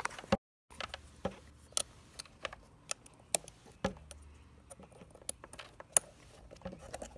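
Irregular light clicks and taps of plastic parts and a USB flash drive being fumbled into a USB cable inside a motorcycle fairing, mixed with the rustle of a phone being handled.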